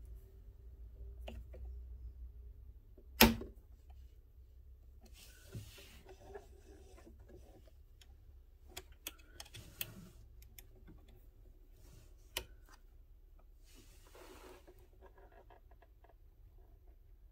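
Allen key clicking in the set screws of a sewing machine's lower shaft gear collar as they are loosened: one sharp loud click about three seconds in, then scattered lighter clicks and soft handling noises.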